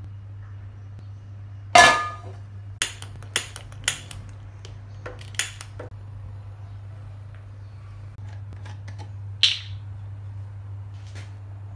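A metal frying pan is set down on a gas hob's grate with a ringing clank. A series of sharp clicks follows over the next few seconds as the gas burner is lit. Another short sharp click comes near the end, over a steady low hum.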